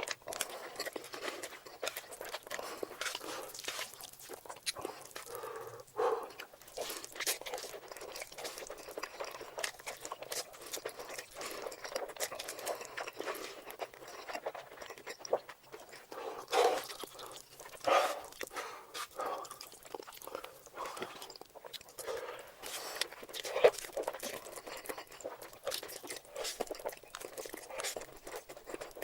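Close-miked eating sounds: a person chewing and biting soft spicy noodles, with many small irregular wet mouth clicks and smacks and a few louder bites.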